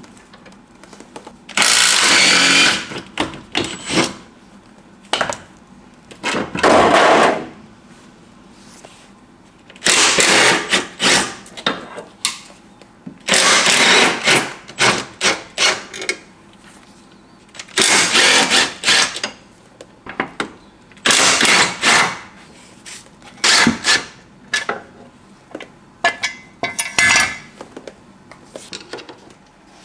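Power tool run in short bursts of one to two seconds, about eight times, with clicks and knocks of hand tools between the bursts.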